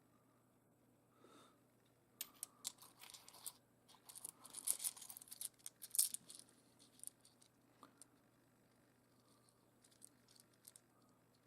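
Faint clicking and scraping of rough seam opal pieces being handled and shifted against one another, a run of small clicks from about two seconds in until about seven seconds in, then a few scattered clicks.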